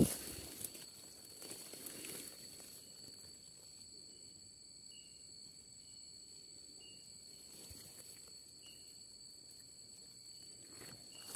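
Quiet night-time tropical brush ambience: a steady high, thin insect drone, with short high chirps about once a second. It opens with one sharp knock and a little rustling of leaves and stems in the first two seconds.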